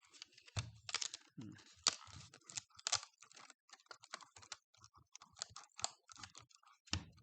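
Parts of a Kobalt 80-volt battery pack being handled: rapid, irregular plastic clicks and taps, with a heavier knock about half a second in and another near the end.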